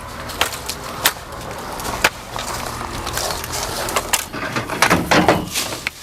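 Tree branches being cut and broken off: a string of sharp woody snaps and cracks, spaced irregularly about a second apart.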